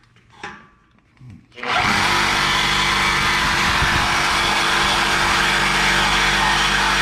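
Reciprocating saw (Sawzall) starting up about a second and a half in and running steadily as its blade cuts into a steel truck exhaust pipe.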